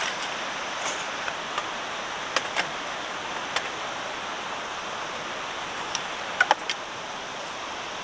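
Steady rushing background noise with a handful of short, sharp clicks and knocks, the loudest a quick pair about six and a half seconds in.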